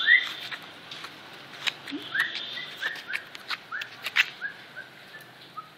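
Puppies whining and yipping in a string of short high cries, one at the start and then about ten in quick succession from about two seconds in, dropping a little in pitch towards the end. Scattered sharp clicks run through them.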